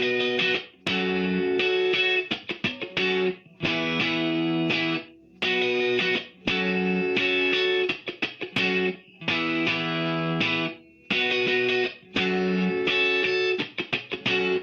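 Electric guitar played through the Adamastor Dual Channel pedal with a distorted tone. It plays a riff of held chords of about a second each, broken up by quick choppy stabs and short silences.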